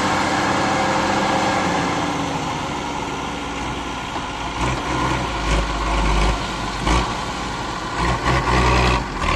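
Dump truck's engine running steadily while its raised bed tips out a load of black soil. From about halfway in, heavy low rumbles and a few knocks come in as the soil slides out and drops onto the pile.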